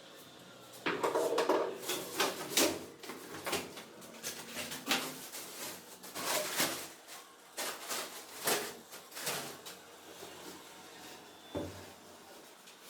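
Irregular knocks, clacks and short scrapes of hard tools and materials being handled and set down during kitchen sink installation work, about a dozen sharp strokes, thinning out in the last few seconds.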